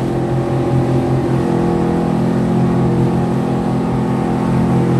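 Speedboat engine running steadily at speed. It makes a constant, even drone with a rushing noise over it that does not rise or fall.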